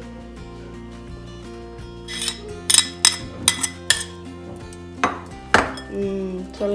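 Metal spoon clinking and scraping against a stainless steel saucepan while stirring dry rice in oil: a run of sharp clinks starting about two seconds in. Background music throughout.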